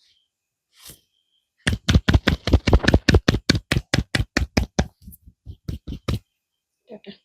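Hands striking in a percussive head massage: one stroke, then a fast, even run of strikes, about six a second, that slows and thins out near the end.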